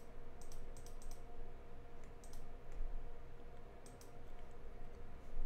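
Light clicks from someone working a computer's mouse and keys, a few in quick succession at the start and more scattered later. A faint steady electrical hum runs underneath.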